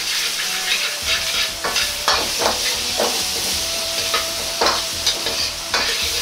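Daikon and ginger sizzling in oil in a hot wok, with a metal ladle repeatedly scraping and knocking against the wok as the food is stir-fried.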